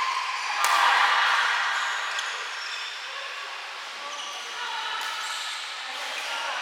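Rain drumming as a steady hiss, with a couple of sharp racket hits on a shuttlecock, under a second in and about two seconds in, and short squeaks of shoes on the court.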